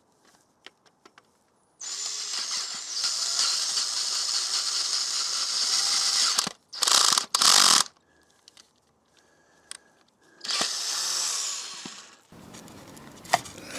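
Power drill with a 14 mm bit boring out a motorcycle's stripped oil sump plug hole, run in short goes. It starts about two seconds in and runs for roughly four seconds, then gives two brief bursts, and runs once more for a second or two near the end.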